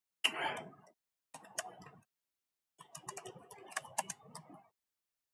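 Computer keyboard and mouse clicking in three short spells with silent gaps between, the longest spell running about two seconds.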